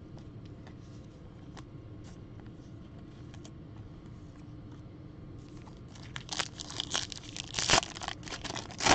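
Foil wrapper of a Topps Chrome trading-card pack crinkling and tearing open, starting about six seconds in, with the loudest rips near the end. Before that there are only faint ticks of cards being handled.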